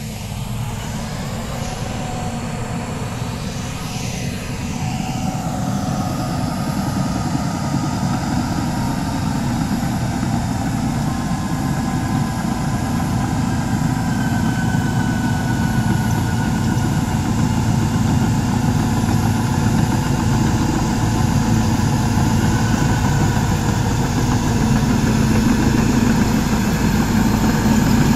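Caterpillar D7R crawler dozer's six-cylinder diesel engine running steadily as the machine drives closer, growing gradually louder.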